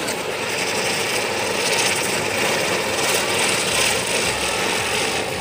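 Ground firework fountain burning, giving off a loud, steady hiss as it sprays sparks.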